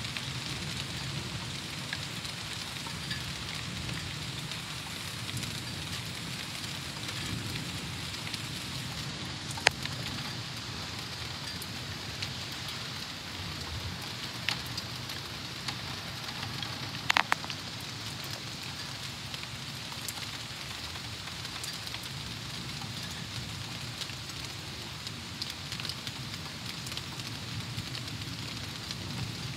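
Steady rain falling on tree leaves and the yard, with a few sharp taps of drops landing close by; the loudest tap comes about ten seconds in and a short cluster about seventeen seconds in.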